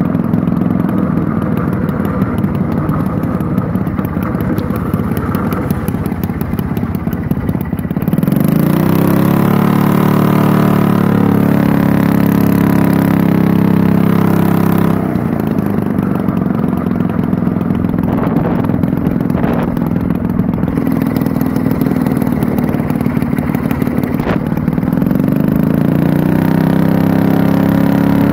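Engine and propeller of a home-built Arctic Cat air sled running at part throttle. The engine revs up about eight seconds in, holds, eases off around fifteen seconds, and revs up again near the end.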